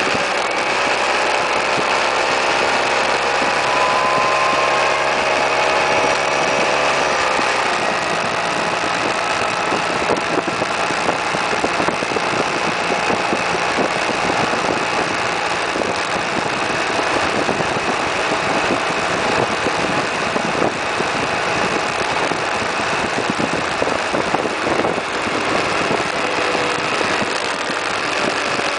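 Suzuki Burgman 650 maxi-scooter's parallel-twin engine pulling away, its note rising over the first several seconds. Wind rush over the microphone at cruising speed then covers it. The engine note comes through again near the end as the scooter slows for a roundabout.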